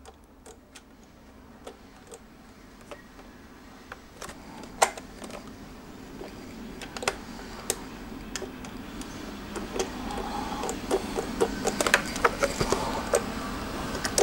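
Light clicks and taps from a small plastic mini LED projector being handled and turned over in the hands. The clicks are sparse at first, then come more often and louder in the second half, with a rustling handling noise underneath.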